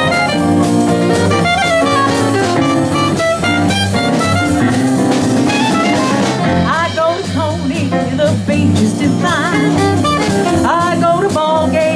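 Traditional jazz band playing, with a saxophone solo over piano, double bass and drums. The solo moves in quick runs at first, then holds longer notes with a wide vibrato in the second half.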